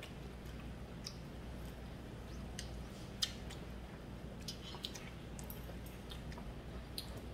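Mealtime table sounds: scattered light clicks of chopsticks against the dishes and the pan, the sharpest about three seconds in, with chewing close to the microphone over a steady low hum.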